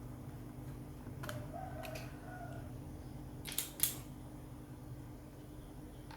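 Small sharp clicks of laptop screws and a screwdriver being handled during disassembly: two faint ticks a little after a second in, then two sharper clicks about three and a half seconds in, over a steady low hum.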